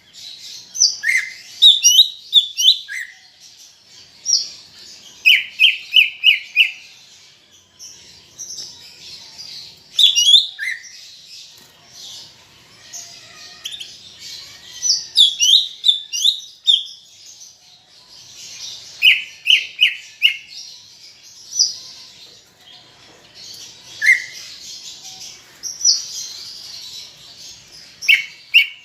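A cucak ijo (leafbird) singing busily: bursts of quick, sliding whistled notes, often four or five in a rapid run, with short pauses between phrases.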